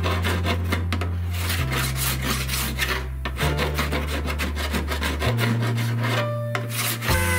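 Rasping, scraping strokes of hand work on a metal body panel, like filing or sanding. Underneath runs background music with a steady bass line that changes note every couple of seconds.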